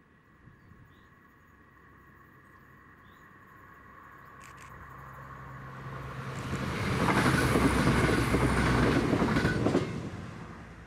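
Arriva CrossCountry Class 170 Turbostar diesel multiple unit approaching and passing at speed. A steady whine and engine hum grow louder, the wheels rumble and tick over the rails as it passes about seven seconds in, and the sound fades away near the end.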